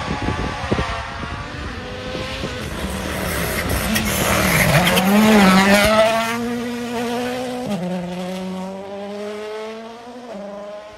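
Toyota GR Yaris Rally1 car's turbocharged four-cylinder engine at full throttle on a gravel stage. It grows louder as the car approaches and slides past, the note wavering as the throttle is worked through the corner, then dropping in two steps as it pulls away.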